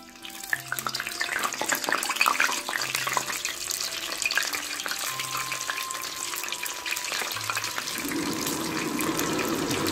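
Raw kibe deep-frying in hot oil: a dense, steady crackling sizzle that starts a moment in as they go into the oil.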